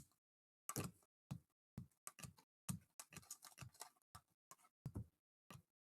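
Trading cards being handled: a string of short, faint clicks and rustles at an uneven pace as cards are moved and flicked against each other.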